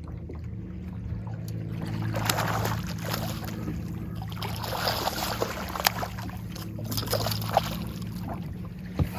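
Water splashing as a hooked largemouth bass thrashes at the surface beside the boat, with a few sharp knocks, over a steady low hum of the boat's motor.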